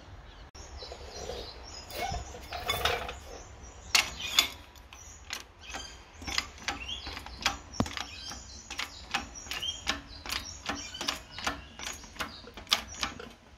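Hydraulic shop press pushing a staked U-joint bearing cap out of a tailshaft yoke: a run of sharp mechanical clicks and ticks, about three a second, with a couple of louder cracks as the cap starts to move.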